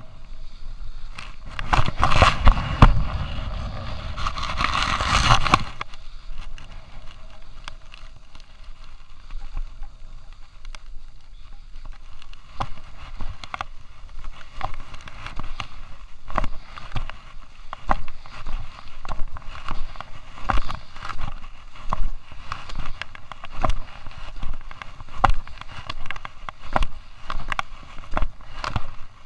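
Skis sliding and scraping over groomed piste snow during a downhill run, heard through a chest-mounted action camera. A burst of loud rushing noise, likely wind on the microphone, lasts a few seconds near the start, then the scraping comes in surges and knocks about once a second.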